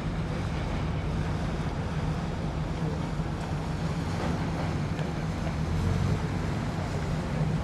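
Steady low engine rumble over constant background noise, with no distinct events.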